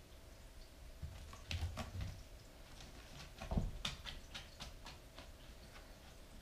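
Bengal kitten pouncing and scrambling in play, its paws and claws making faint scattered taps and ticks, with a soft thump about three and a half seconds in.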